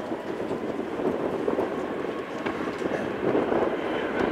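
Boeing KC-46A Pegasus's twin Pratt & Whitney PW4062 turbofan engines running at low power as the tanker taxis, a steady rumble with a faint high whine over it.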